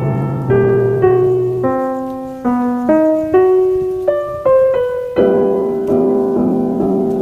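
Background piano music: a slow melody of single notes struck about every half second, each fading away, over held lower chords.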